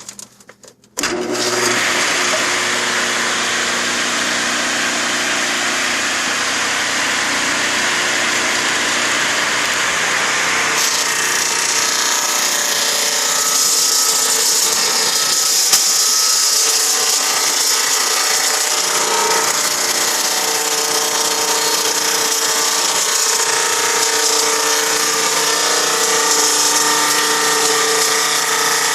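Sawmill machinery starting abruptly about a second in and then running steadily. About ten seconds in, the sound shifts, losing its low rumble and growing more hissing.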